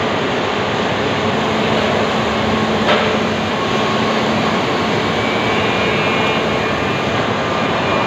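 Steady, loud drone of factory machinery in a timber-processing hall, with faint steady tones running through it and a single knock about three seconds in.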